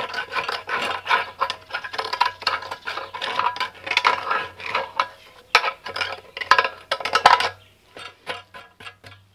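Rapid, irregular scraping and clinking of a metal tool against a metal fuel tank as oily gunk is worked off it. The strokes thin out to scattered clicks about three quarters of the way through.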